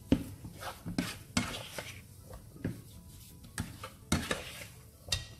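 Spatula scraping and knocking against a nonstick frying pan as thick mashed sweet potato halwa is stirred and pressed, in irregular strokes with a few sharper knocks. The halwa has cooked down stiff enough to come away from the sides of the pan, the sign that it is done.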